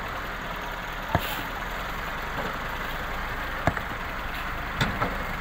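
Farm tractor engine running steadily as its front loader works, with a few sharp knocks about a second in and again later.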